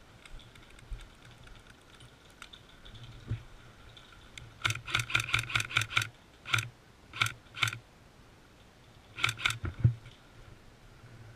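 Airsoft gun firing: a quick string of about seven shots at roughly five a second, then three single shots, then two quick shots near the end.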